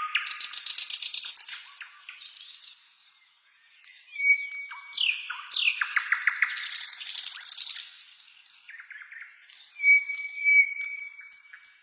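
Birds singing and chirping: whistled notes, quick falling glides and a held whistle, mixed with fast ticking, buzzing trills. The sound drops away briefly about three seconds in.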